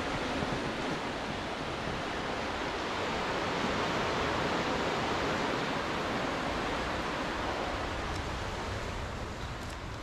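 Ocean surf: a steady wash of waves that swells to its loudest about halfway through and eases off near the end.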